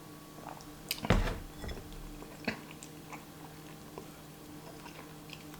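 Quiet chewing and mouth sounds of someone eating spicy instant noodles. There is a sharp knock about a second in, followed by a few small clicks.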